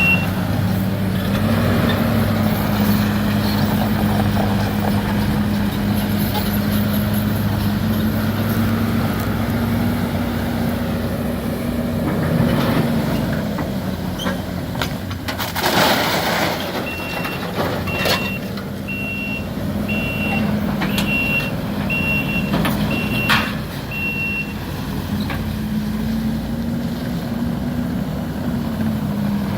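Heavy diesel demolition machinery at work. A diesel engine runs and revs up and down, a backup alarm beeps about once a second for several seconds in the second half, and there is a loud burst of noise about halfway, followed by a few sharp clanks.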